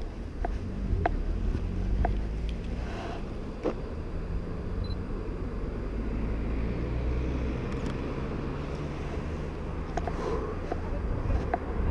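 City traffic rumble by a road, steady and low, with a few short, faint clicks scattered through it.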